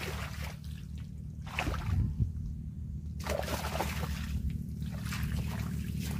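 A hooked bighead carp splashing and sloshing in the water in several bursts as it is played on a bent spinning rod, over a steady low rumble.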